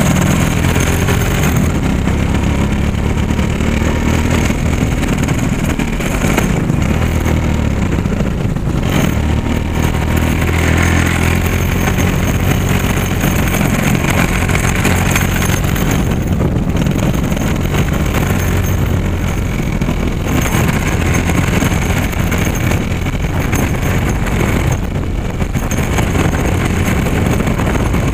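Motorcycle riding along a wet street: the engine runs steadily under heavy wind noise on the microphone, with tyre noise from the wet road.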